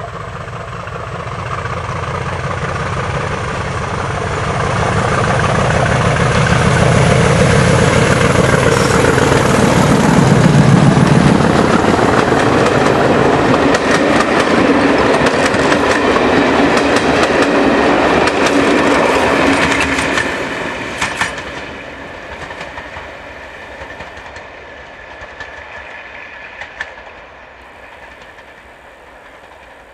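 Class 50 diesel-electric locomotive with its English Electric 16-cylinder engine running, growing louder as it approaches and passes close by about ten seconds in. Its coaches then rumble past with wheels clicking over the rail joints, and the sound drops away sharply and fades as the train recedes.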